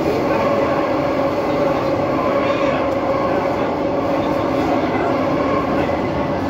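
Metro train running at speed through a tunnel: a steady rumble of wheels on rail with a held, even tone running through it.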